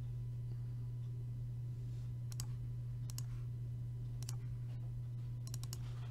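Computer mouse clicking a handful of times, some clicks in quick pairs and a short run of them near the end, over a steady low hum.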